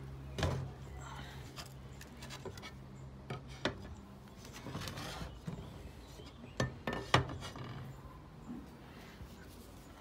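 Curved smoked-glass chandelier shade panels clinking against each other and being set down on a plastic table: several sharp clinks, the loudest a little after the middle.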